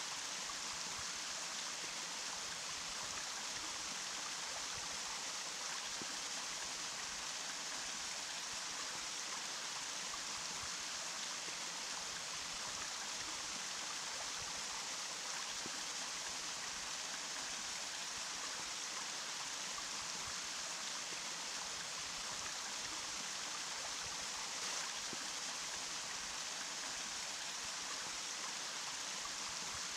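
Running water: a steady, unbroken bright rush with little deep rumble.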